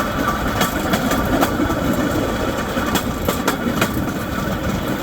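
Wheels of a rail cart rolling along the track: a steady rumble with irregular sharp clicks.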